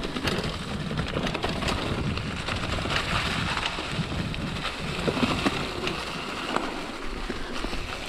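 Mountain bike rolling downhill on a leaf-covered forest trail: steady tyre noise over dirt and leaves, with many small clicks and rattles from the bike.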